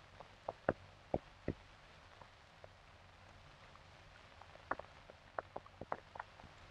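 Faint, scattered clicks and pops over a low hiss, typical of the crackle on an old film soundtrack: a few in the first second and a half, then a cluster near the end.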